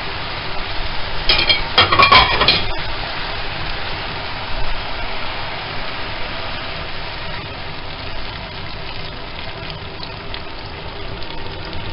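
Chicken breast and diced vegetables sizzling steadily in a frying pan, with a short burst of sharp clicks and clatter about a second and a half in.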